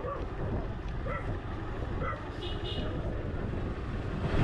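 Steady low motor-vehicle engine rumble of slow street traffic, with scattered voices of people close by.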